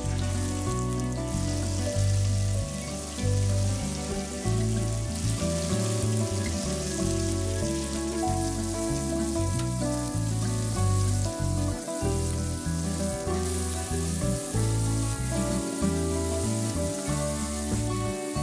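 Marinated white fish pieces sizzling as they fry in hot oil in a nonstick pan, with background music playing over them.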